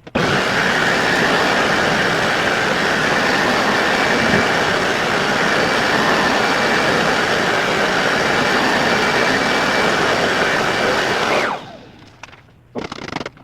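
Vacuum cleaner switched on and running steadily while vacuuming up leftover sawdust, then switched off about a second and a half before the end, its motor winding down in a falling whine. A few short knocks follow.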